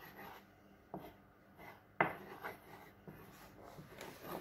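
A spoon scraping and rubbing flour across a plastic cutting board, with a light knock about a second in and a sharper knock about two seconds in.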